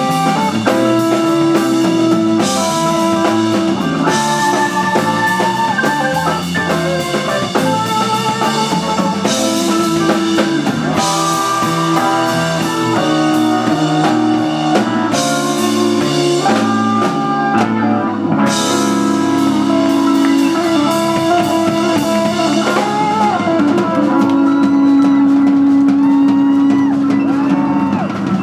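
Live rock band playing an instrumental: electric guitar lead over bass guitar, drum kit and Hammond B-3 organ. In the second half the guitar plays bent notes, then holds one long note near the end.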